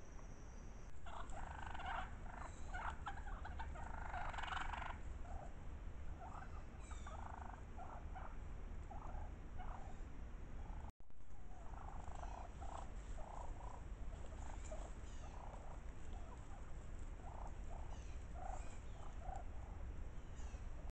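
Wild turkeys calling in a run of short, repeated calls, packed close together for the first few seconds and more spaced out after, with a brief dropout about eleven seconds in. Crickets trill steadily for about the first second.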